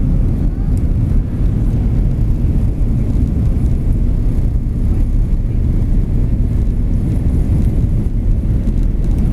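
Airliner cabin during the takeoff roll: a steady, loud rumble of the jet engines at takeoff power and the wheels on the runway.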